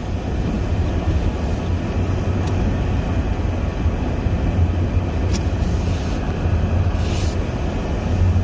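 Vehicle driving, a steady low rumble with a couple of light clicks and a short hiss about seven seconds in.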